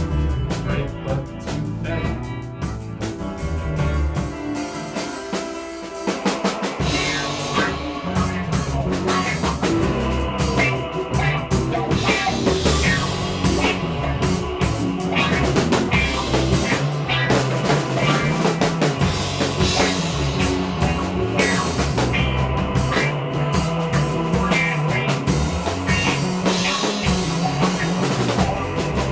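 Psychedelic rock band playing live, with electric guitar, bass and drum kit. After a sparser opening, the drums and bass come in fully about seven seconds in and the band plays on at full volume.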